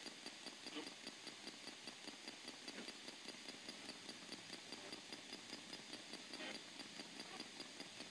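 PSB-7 spirit box sweeping the AM band: faint radio static chopped into soft ticks about five times a second as it jumps between stations, with a brief scrap of broadcast sound now and then.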